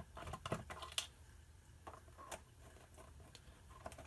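Sparse, faint clicks and taps of a plastic alarm clock being handled, a few separate sharp clicks over quiet room tone.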